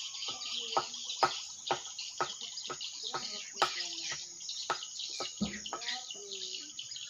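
Edible-nest swiftlets twittering around a swiftlet house: a dense, continuous high chirping with many short, sharp clicks.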